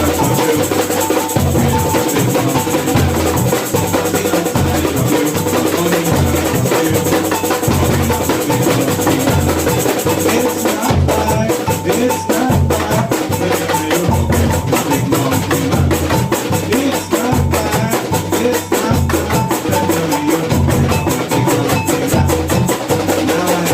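Samba bateria playing a steady groove together: deep bass-drum strokes pulse regularly underneath, with sharp, rapid higher percussion and shaker-like rattling over the top that grows denser about halfway through.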